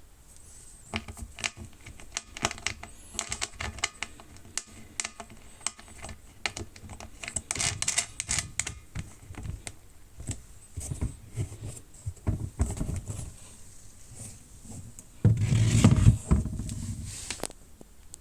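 Hard plastic tool case being handled: a run of irregular clicks, taps and rubbing, with a louder scraping rush lasting about two seconds near the end.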